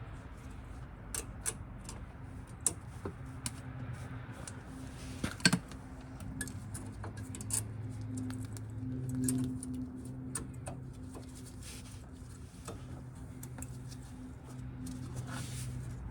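Scattered light metallic clicks and taps as a brake pad is set against the caliper bracket's tabs and rotated into place, with one sharper knock about five and a half seconds in, over a steady low hum.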